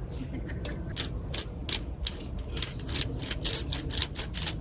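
Salt grinder twisted by hand, grinding coarse Himalayan salt: a run of sharp, irregular ratcheting clicks, several a second, starting about a second in.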